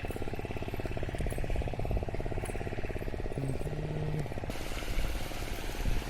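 A small engine running with a fast, even beat. A short steady tone sounds briefly about three and a half seconds in.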